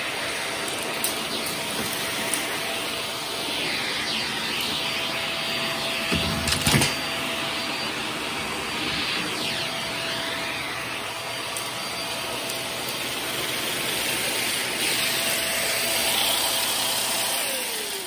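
Shark vacuum cleaner running on carpet through its hose and wand, its airflow rising and falling as the wand sweeps, with a few clicks and a louder knock about six seconds in. Near the end the motor is switched off and winds down in a falling whine.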